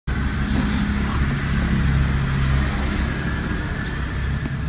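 Steady low rumble of a car engine running at idle.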